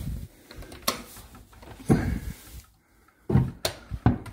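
Wooden sideboard doors and drawers being opened and pushed shut: a handful of separate knocks and clicks of wood and hardware.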